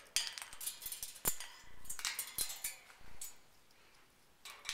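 Eclectus parrot moving about her metal cage with a piece of piñata in her beak: scratchy rustles and a run of sharp clicks, two of them louder, then a short lull near the end.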